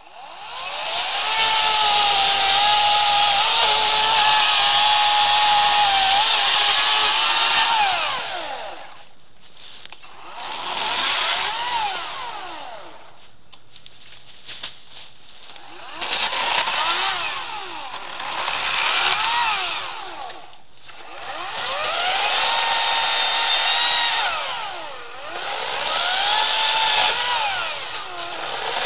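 EGO 56V brushless battery chainsaw cutting a downed pine. Its electric motor whines up to speed and holds through a cut of about seven seconds, then winds down. About five shorter trigger squeezes follow, the whine rising and falling with each one.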